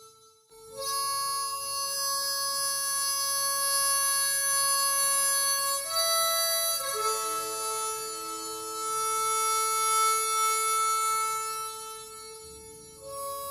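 Music on a free-reed instrument: slow, long held notes, the tune stepping to a new pitch only a few times, about six and seven seconds in and again near the end.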